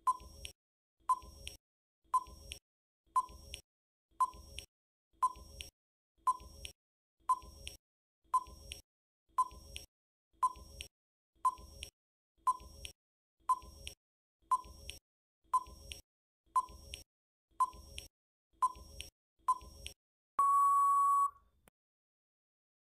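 Quiz countdown timer sound effect: a sharp tick once a second, about twenty times, then one steady beep lasting about a second as the time runs out.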